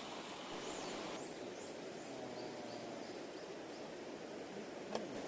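A bird gives a series of about seven short, high arched chirps over a couple of seconds, the later ones a little lower. Under it runs a steady, faint outdoor background hiss, and there is a single small click near the end.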